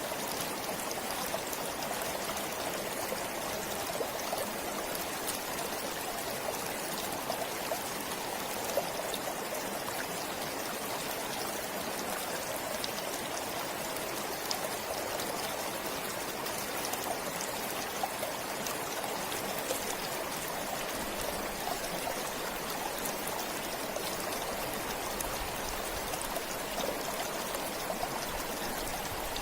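A forest stream flowing steadily: a continuous rush of running water, with a few faint brief drips or splashes here and there.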